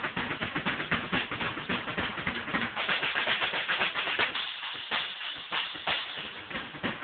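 Acoustic drum kit played fast, a dense, continuous run of stick strikes on drums and cymbals. About two-thirds of the way through, the low drums drop out for a second or so, leaving mostly the brighter hits, before the full kit comes back in.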